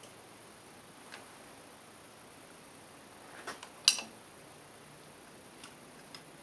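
A few light metallic clicks and taps, with one sharp metal clink about four seconds in that rings briefly, over a faint steady hiss.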